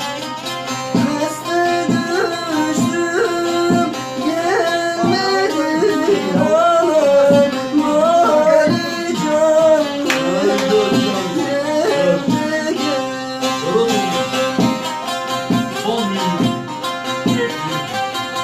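Music from a Turkish folk song: a melody on strings over a steady hand-drum rhythm.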